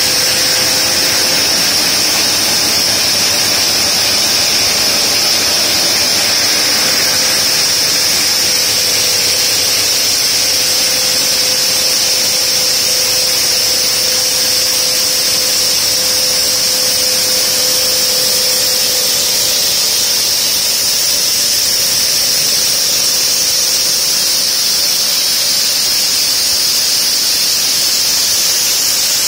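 Multiblade block cutter's diamond saw blades cutting a granite block under water spray: a loud, steady, high-pitched screech over a hiss, with a fainter steady hum underneath that fades about two-thirds of the way in.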